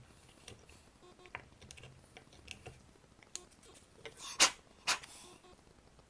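Light clicks and taps of small wooden pieces and tools being handled on a workbench, with two sharp knocks about half a second apart near the end.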